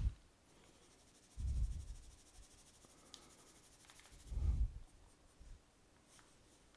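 Graphite pencil shading on drawing paper: two short bursts of strokes, about a second and a half in and again about four and a half seconds in.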